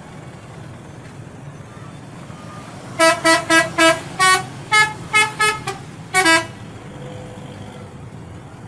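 Bus 'telolet' musical horn playing a quick tune of about ten short notes: four on one pitch, then several stepping up and down, ending on a slightly longer note. Steady traffic rumble underneath.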